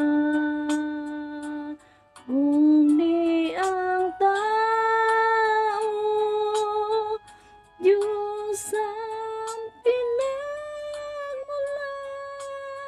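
A woman singing a slow Tagalog ballad with no accompaniment, in long held notes with short breaks for breath between phrases.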